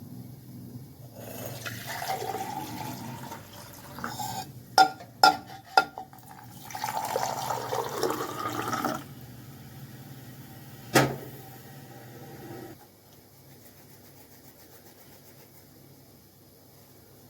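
Water running into a container in two spells, rising in pitch as the container fills. Several sharp clinks of dishes or utensils come between the spells and once more later. A low steady hum stops about two-thirds of the way through.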